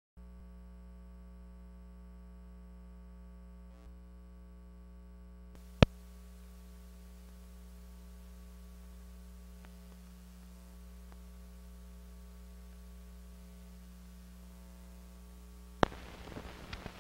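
Steady electrical hum with many overtones on an old 16 mm film soundtrack, joined by a faint hiss about five seconds in. Two sharp clicks break it, one about six seconds in and one near the end, and light crackle follows the second.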